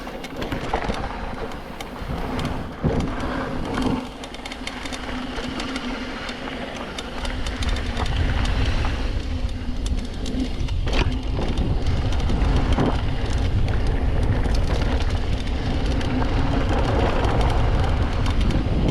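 Mountain bike rolling fast down a trail: a steady buzz from the rear freewheel hub, with rattles and knocks from the bike over rough ground. From about seven seconds in, wind rumble on the microphone builds as speed picks up.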